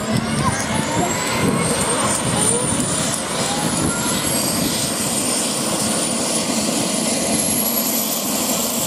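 F/A-18 Hornet fighter jets' turbofan engines running on the ground: a loud, steady rush with several high turbine whines slowly rising in pitch.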